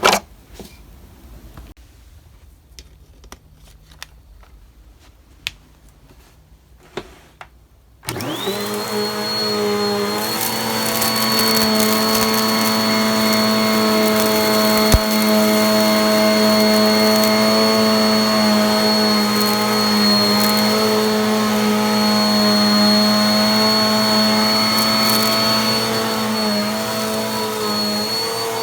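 Dirt Devil Featherlite cyclonic bagless upright vacuum cleaner, with a tighter drive belt freshly fitted. It is switched on about eight seconds in after a few quiet clicks and knocks. The motor spins up with a rising whine and then runs steadily with a high whine.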